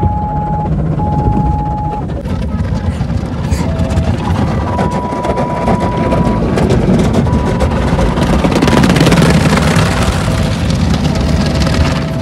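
Automatic car wash heard from inside the car: water spraying and soft-cloth brushes sweeping over the windshield and body, making a loud steady rush with many rapid slaps.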